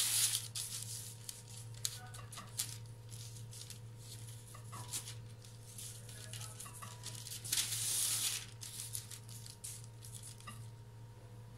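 Baking paper rustling and crinkling under hands pinching and folding the edge of a round of dough, in short scattered rustles with two longer crinkles, at the start and about eight seconds in.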